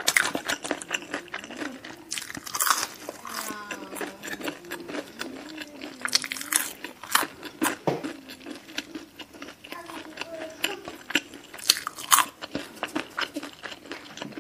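Crunching and chewing of crispy fried chicken (Jollibee Chickenjoy) close to the microphone, with sharp irregular crunches through the whole stretch.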